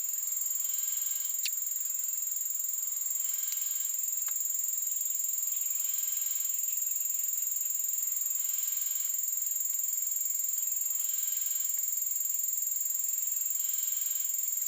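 Japanese level-crossing warning alarm sounding on and on, the crossing stuck by a fault. Its tones repeat in a steady pattern every couple of seconds.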